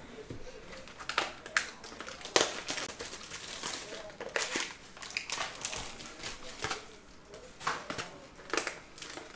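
Foil wrapper of a 2022 Bowman Sterling baseball card pack crinkling in the hands as it is opened, in irregular rustles and crackles.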